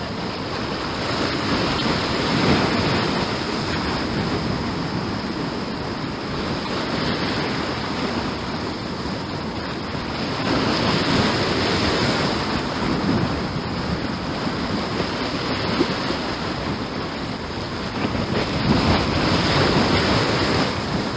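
Ocean surf washing onto the shore, swelling louder a few seconds in, near the middle and near the end, with wind on the microphone.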